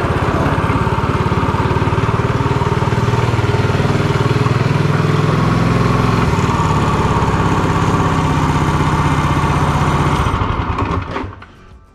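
Minibike's Predator 212 single-cylinder four-stroke engine, governor removed, running steadily, then dying away about eleven seconds in.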